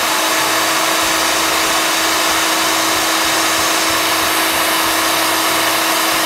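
Food processor motor running steadily, a loud whir over one steady hum, while it emulsifies garlic with oil and lemon juice into a garlic sauce (toum).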